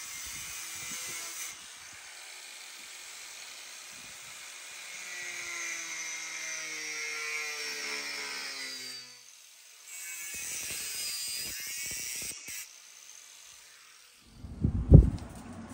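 Small corded angle grinder with a cut-off wheel cutting into a steel bumper: a high whine over a grinding hiss, its pitch dropping steadily in the middle of the cut. It stops about nine seconds in, cuts again briefly, and a single loud knock comes near the end.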